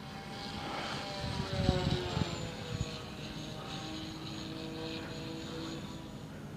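Electric motors and propellers of a ParkZone Mosquito RC plane whining in flight, the pitch sliding down and then holding as it passes. Wind buffets the microphone in a few low gusts between about one and a half and three seconds in.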